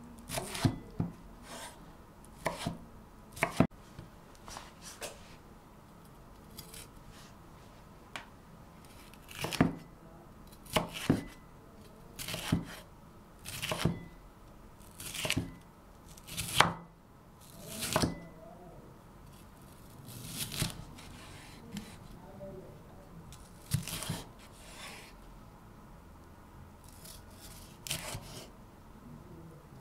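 Chef's knife chopping diced tomato and then slicing red bell pepper on a bamboo cutting board. Each stroke is a short crisp knock of the blade on the wood, coming in irregular runs of one or two a second with brief pauses between.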